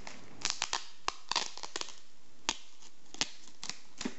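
Hands handling the clear plastic packet of a phone screen protector: stiff plastic crinkling with irregular sharp crackles.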